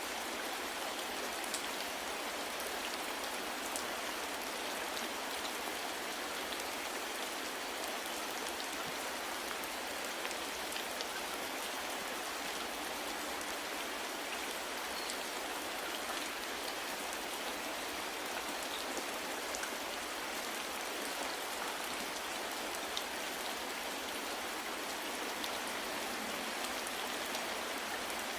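Steady, even rain falling, with scattered faint drop ticks throughout.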